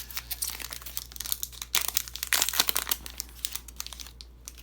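Wrapper of a hockey card pack being torn open and crinkled by hand: a dense, irregular crackling, loudest around the middle, dying away near the end.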